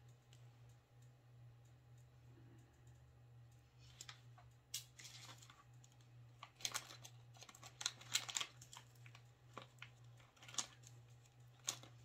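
Scattered light clicks and taps of small craft pieces, painted wooden clothespins and tiny embellishments, being picked up and set down on a tabletop, over a faint low hum. The clicks come irregularly, mostly in the second half.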